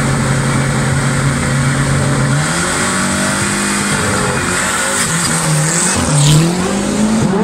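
Renault 5 race car's engine held at steady revs on the start line, then launching off: the revs climb and drop in steps as it pulls away and passes close by, loudest about six seconds in, with a sharp rise in revs near the end.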